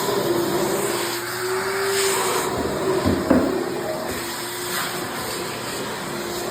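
Bauer 16-gallon wet/dry shop vacuum running: a steady rush of air with a motor whine that slowly rises and falls in pitch as the airflow at the nozzle changes. A short knock sounds about three seconds in.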